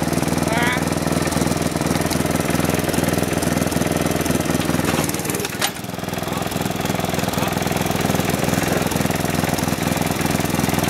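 Engine of a red Snapper rear-engine riding mower running steadily as the mower creeps forward across grass, with a brief dip and a sharp click about halfway through.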